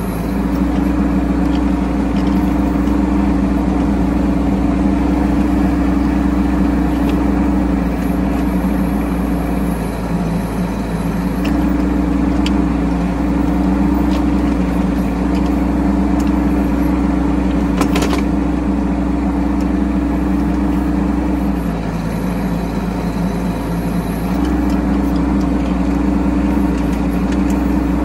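Bobcat E10 mini excavator's small diesel engine running steadily while it digs. Its note drops lower twice for a second or two, about ten and twenty-two seconds in, before coming back up.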